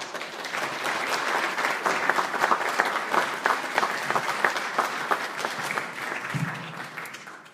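Audience applauding: many hands clapping in a dense patter that starts suddenly and dies away near the end.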